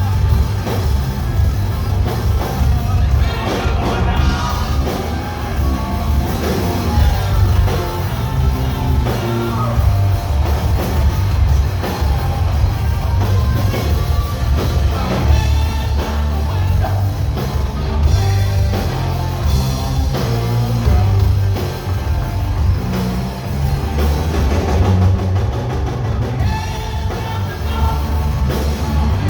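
Live rock band playing loudly, with a drum kit and heavy bass.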